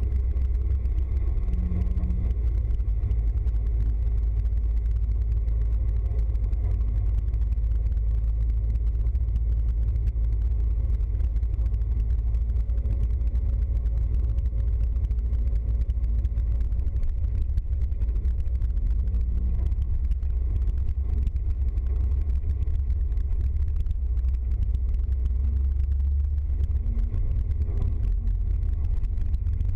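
Engine and road noise heard from inside a moving vehicle's cab: a steady low rumble at an even cruising pace.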